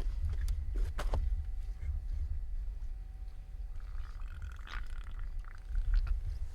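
Low steady rumble of a fishing boat sitting on open water, with a few sharp knocks in the first second or so.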